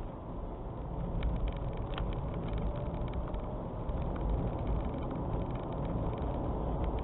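Strong wind blowing in a snowstorm, with a deep, uneven rumble of gusts buffeting the microphone. From about a second in, scattered faint ticks sound, as of snow striking a surface.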